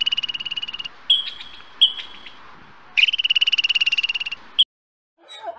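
Eurasian red squirrel chattering: a high, rapid rattling trill that stops about a second in, two short chirps, then a second trill of about a second and a half ending in a short squeak.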